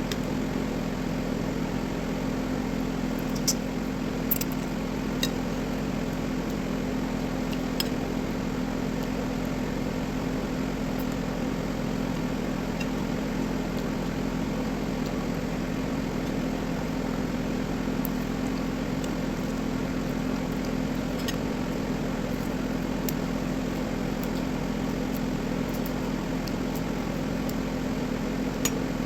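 A steady machine hum with a few faint, brief clicks scattered through it.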